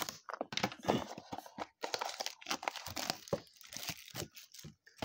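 A trading-card blaster box being torn open and its packs handled: irregular tearing, crinkling and crackling of cardboard and wrapper.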